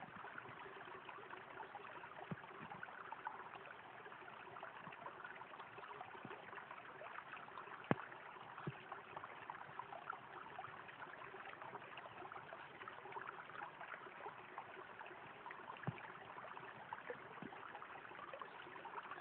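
Shallow mountain stream trickling and babbling over stones, a steady faint water sound. Two sharp clicks cut through it, about eight seconds in and again near the end.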